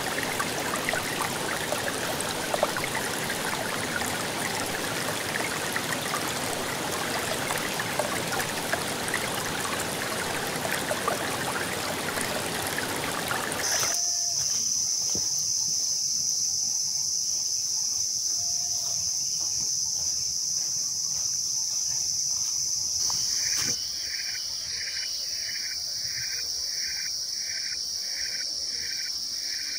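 A stream and waterfall run steadily for about the first half. The sound then switches to forest insects: a steady, high-pitched drone, joined near the end by a second insect chirping about twice a second.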